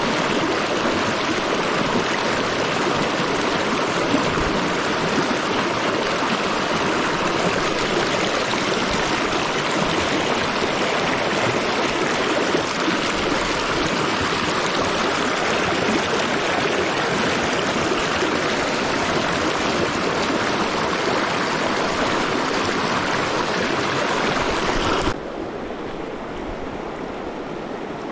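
River water rushing over rocks in a shallow rapid close by, a steady full rush. About three seconds before the end it drops suddenly to a quieter, duller rush.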